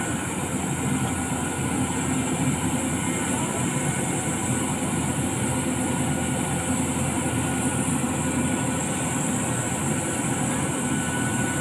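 CAT 320D hydraulic excavator's diesel engine running steadily under load.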